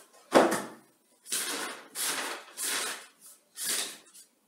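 A knock on a wooden table, then paper rustling in four short swishes as notebook pages are handled and turned.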